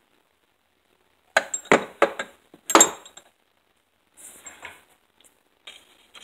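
Chrome steel sockets clinking against each other and their plastic tray as they are handled: a few sharp metallic clinks about a second and a half in, a louder one near three seconds, then softer clicks and rattles near the end.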